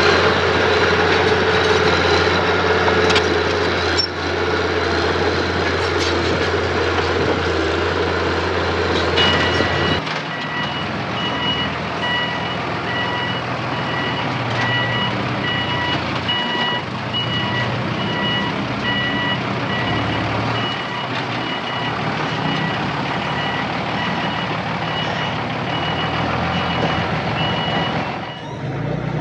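Heavy earthmoving machine engine running loudly, then a reversing alarm beeping at an even rate from about a third of the way in, stopping just before the end.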